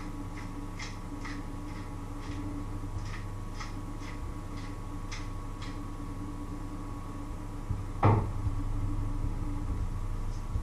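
Kitchen handling sounds over a steady low hum: light clicks about two a second through the first half, then one loud knock about eight seconds in as a steel pot is set down on the glass-ceramic hob.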